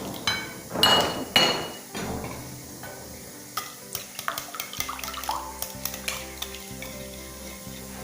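A utensil clinking and scraping against a bowl while ingredients are stirred together, with several ringing clinks in the first two seconds and lighter taps after.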